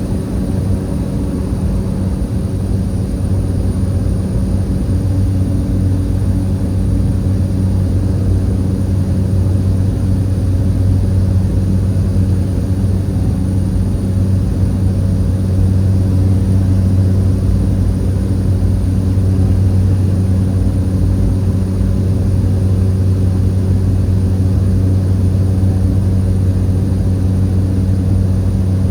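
Steady drone of a small commuter propeller plane's engine heard from inside the cabin during takeoff and climb: a deep, even hum that swells slightly over the first few seconds.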